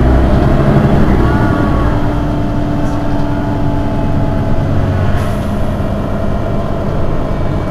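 Mercedes-Benz Citaro city bus engine idling steadily, with a brief high hiss about five seconds in.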